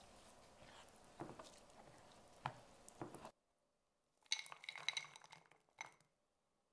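A silicone spatula stirring a wet quinoa mixture in a glass baking dish, with soft scrapes and taps. After a brief silence, blueberries tumble out of a glass bowl into the dish in a quick patter of clicks and glassy clinks, the loudest part.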